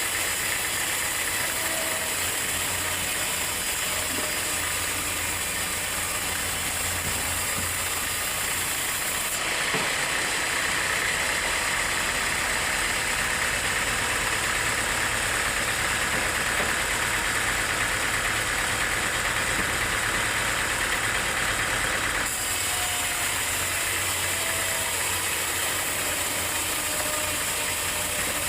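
Sawmill machinery running steadily. A higher, hissing sawing tone comes in about a third of the way through and stops about three quarters through, as the saw blade cuts through a log.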